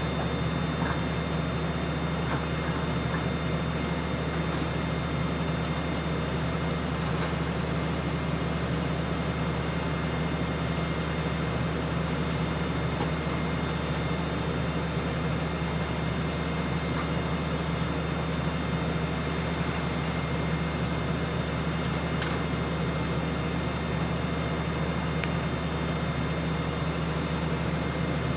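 Heavy-equipment diesel engine running close by at a steady, unchanging speed, a low hum with no revving.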